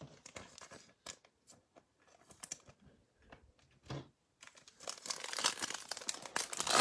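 A few light clicks and taps of cards and packs being handled, then from about four and a half seconds in the foil wrapper of a 2021 Mosaic football card pack crinkling and tearing as it is ripped open.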